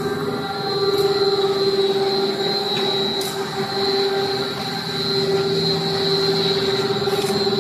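Twin-screw rubber sheeter running as its two screws work a batch of rubber compound in the hopper. It gives a steady mechanical drone with a constant high whine and a few faint clicks.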